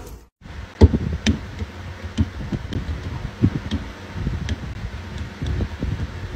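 A domestic cat purring close to the microphone: a steady low rumble, with scattered soft clicks and taps. It starts after a brief silence near the start.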